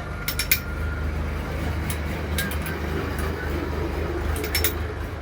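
Bajaj Platina motorcycle's single-cylinder four-stroke engine running at a steady speed, with a few sharp clicks over it.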